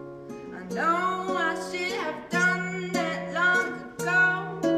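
Acoustic guitar played in slow picked chords, struck about every second and a half, with a woman singing over it.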